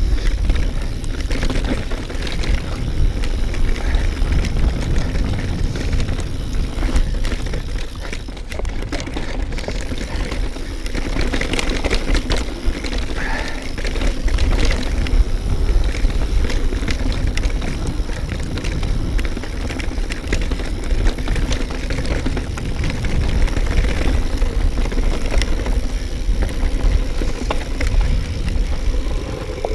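A mountain bike rolling fast downhill over a dirt and stone trail: tyre and trail noise with wind rushing over the microphone, steady throughout.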